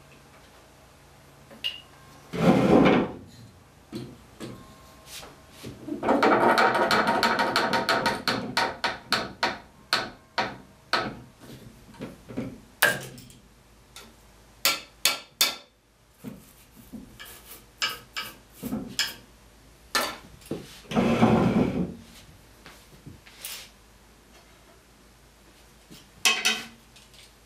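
Windsor chair spindles being knocked down into glued holes in the wooden seat with a hammer: a fast run of light taps, then many separate sharp knocks, with two longer, louder bursts, one near the start and one near the end.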